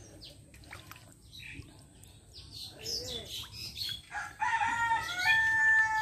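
A rooster crowing once, a long call starting a little over four seconds in, with small birds chirping throughout.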